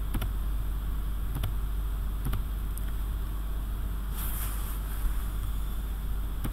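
Steady low electrical hum and hiss from a computer recording microphone, with a few faint mouse clicks and a short rush of noise about four seconds in.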